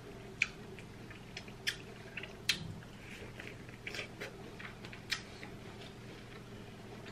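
Close-miked chewing of a mouthful of corn kernels: irregular wet clicks and smacks of the mouth, sharpest about half a second and two and a half seconds in.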